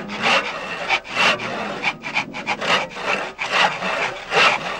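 Handsaw sawing through a wooden post in steady back-and-forth strokes, about two a second.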